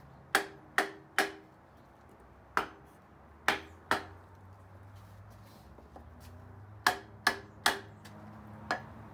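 Hammer blows pounding on the seized pistons of a 1958 Lincoln 430 V8 block: about ten sharp knocks, each with a short ring, mostly in quick runs of two or three.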